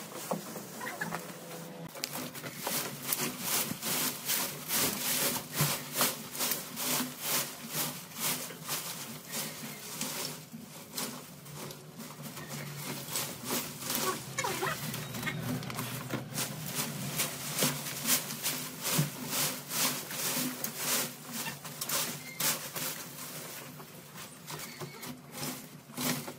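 Repeated rasping, scraping strokes, about three a second, over a steady low hum. The strokes let up briefly about two seconds in, around the middle and near the end.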